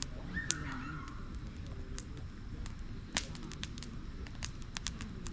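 Burning firewood crackling, with sharp irregular snaps and pops. The loudest comes about three seconds in.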